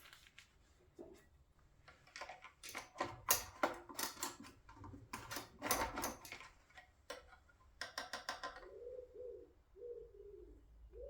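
A run of quick clicks and rattles for several seconds, then a pigeon cooing in a repeated phrase near the end.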